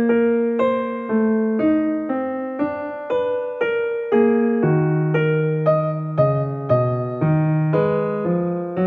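Background music: a gentle piano melody, its notes struck about twice a second, each fading before the next.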